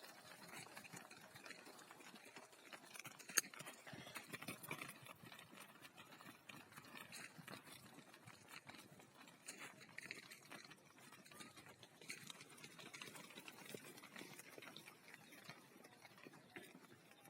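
Faint, scattered clicks and patter of sheep moving about, with one sharp click about three and a half seconds in.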